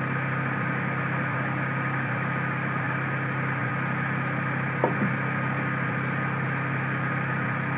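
Steady low background hum with a faint hiss, even in level throughout, with one brief faint blip about five seconds in.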